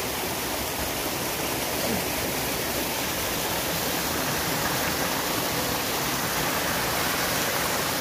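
Mountain stream rushing and splashing over rocks in small cascades: a steady, even rush of water.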